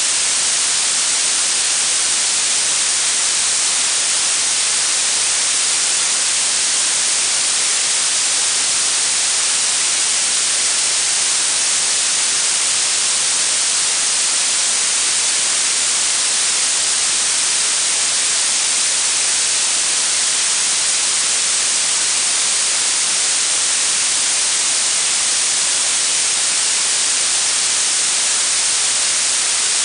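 Synthetic blue noise: a steady, even hiss weighted toward the high frequencies, with no change in level.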